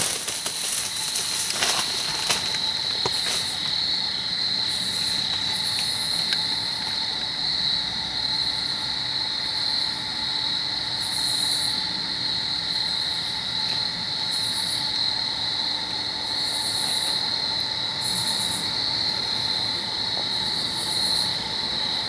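Dusk chorus of crickets: a steady high trill. Pulses of a second, higher-pitched insect call come every second or two over it, and a few faint cracks or rustles sound in the first three seconds.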